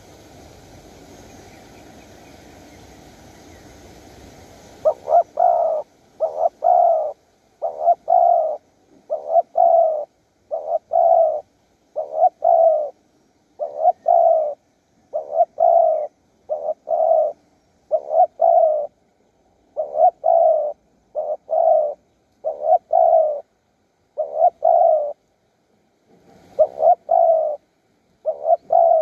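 Spotted dove cooing over and over: short repeated coo phrases, each of two or three notes, starting about five seconds in after a faint steady hiss.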